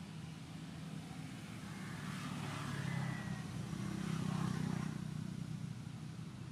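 A motor vehicle's engine rumble, growing louder toward the middle and easing off near the end.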